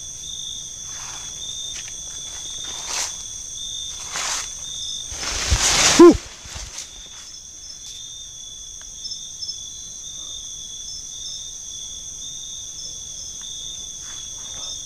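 Steady, high chorus of night insects, with brush rustling underfoot now and then. About six seconds in comes one loud, brief noise whose pitch drops sharply.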